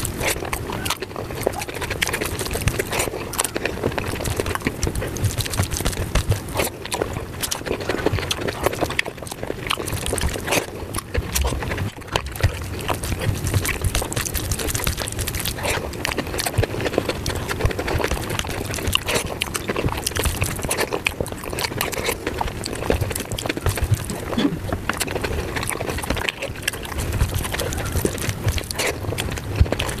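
Sped-up mukbang eating sounds of palak paneer and rice eaten by hand: fast, continuous wet chewing and mouth smacking, mixed with squelching as the fingers work the spinach curry into the rice.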